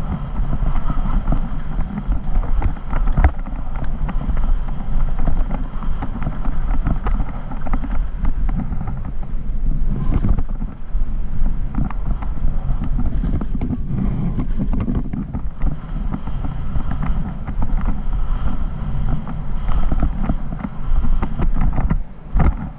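Wind buffeting a helmet-mounted camera on a fast downhill mountain-bike run, with the bike's tyres and frame rattling and knocking over a rough dirt trail. The noise eases briefly twice, about halfway through.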